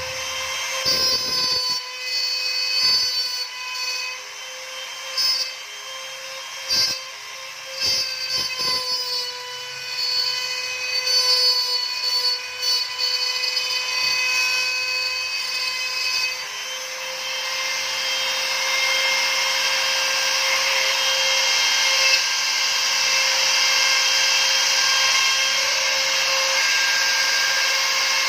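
CNC router's spindle motor running with a steady high whine while its bit engraves lettering into a wood sheet. For the first half or so the cutting noise comes and goes in short stretches. About halfway through it turns into a steady, slightly louder rasp of continuous cutting.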